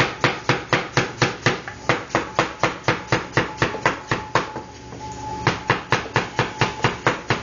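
Kitchen knife chopping rapidly on a cutting board, an even run of about four strokes a second. It stops for about a second a little past the middle, then carries on.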